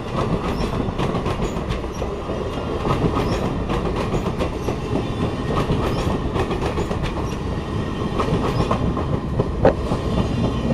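Amtrak Superliner bilevel passenger cars rolling past, a steady rumble with the wheels clicking over the rail joints. One sharper click comes near the end.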